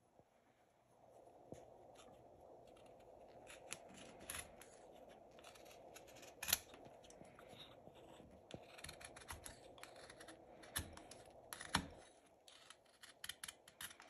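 Knife blade whittling a small piece of soft wood, faint: a run of short scraping shaving cuts and clicks of the blade, with sharper snaps about six and a half seconds in and near twelve seconds.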